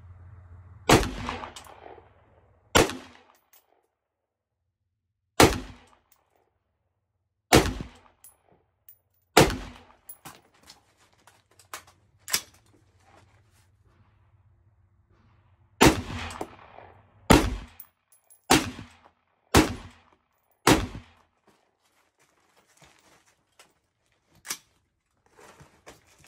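Ten rifle shots from a 5.56 rifle: five at an even pace about two seconds apart, a pause of about six seconds, then five more fired faster, about a second apart. A few fainter knocks fall in between.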